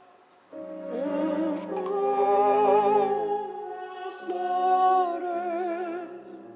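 A voice singing a slow melody in a high register over soft accompaniment, in two phrases of long held notes with vibrato.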